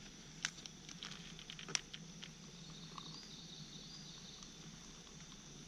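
A few light clicks and taps as a plastic cup is handled on an aluminium mess-tin lid, then a faint trickle of brewed coffee poured from a pouch spout into the cup.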